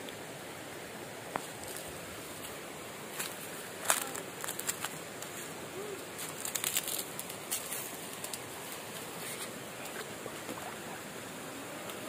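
Steady rush of a waterfall and stream, with a scatter of sharp clicks and knocks from about three to eight seconds in.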